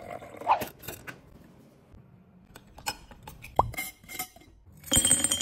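Glassware being handled: a few light clinks and knocks of glass and a jar lid. Near the end, a loud run of clattering clinks as ice cubes drop into a glass mason-jar mug.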